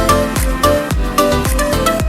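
Background music with a steady kick-drum beat, about two beats a second, under a melody.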